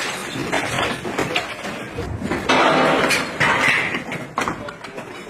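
Boots crunching and scraping over broken brick and concrete rubble, with irregular clicks and clatter of the walkers' gear; a louder, longer crunch of noise comes about two and a half seconds in.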